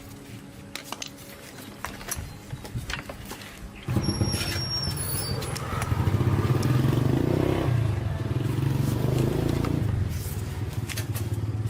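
A few clicks and knocks, then about four seconds in a two-stroke chainsaw engine starts suddenly and runs. It revs louder in the middle and settles back to a lower, steadier idle near the end.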